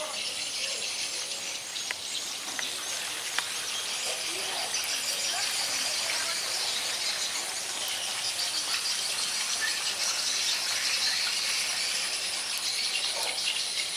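Outdoor ambience: a dense, high chorus of chirping insects that grows a little louder partway through, with scattered short bird calls.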